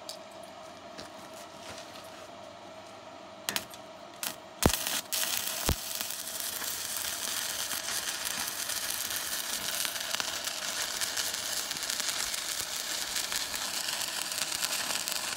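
Stick-welding arc crackling and hissing as a bead is run along a crack in a steel loader bucket. After a few sharp clicks, the arc catches about four and a half seconds in and then crackles steadily.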